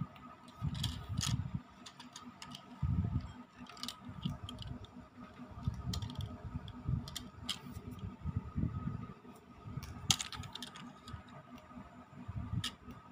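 Handling noise from a plastic HO-scale DF4B model diesel locomotive being turned over in the hands: scattered light clicks and taps of the plastic body, with soft low rubbing thumps in between.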